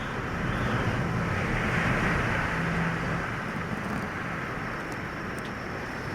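Strong typhoon wind blowing, with wind rumbling on the microphone; a gust swells over the first few seconds, then eases.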